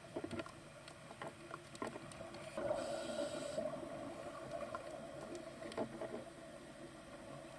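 Faint underwater ambience picked up through the camera housing: a low steady hum with scattered small clicks, and a brief hiss about three seconds in.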